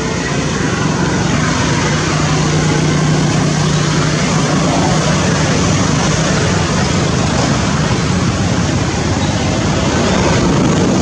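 Steady motor-vehicle noise: a low engine hum under a wide hiss like traffic, the hum strongest in the first half.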